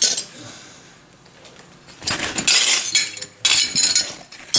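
Glass clinking and rattling: one short clink at the start, then several rattling bursts of clinking from about two seconds in.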